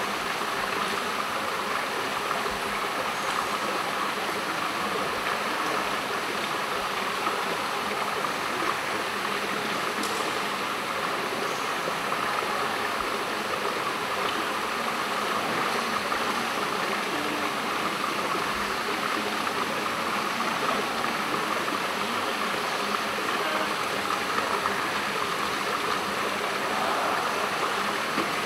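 Steady rush of water circulating in an indoor saltwater fishing tank, an even hiss with no change in level.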